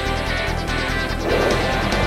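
Instrumental background music with held chords over a fast pulsing bass, swelling slightly about halfway through.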